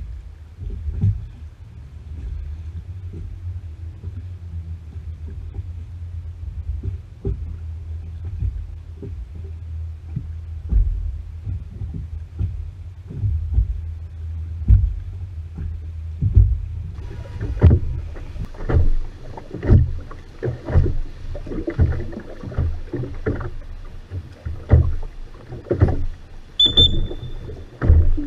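Oars of a Venetian rowing boat stroking and splashing through the water, with repeated knocks. A low steady rumble runs underneath for the first part; about two-thirds of the way in the splashing and knocking turn sharper and busier, and a brief high tone sounds near the end.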